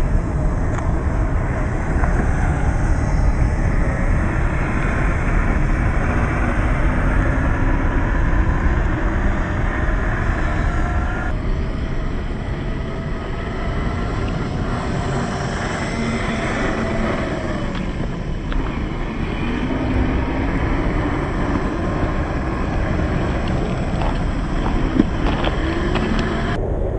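1/10-scale MST CFX RC crawler's 27-turn brushed electric motor and gears whining as it drives, the pitch gliding up and down with the throttle over a steady low rumble. The background changes abruptly about eleven seconds in.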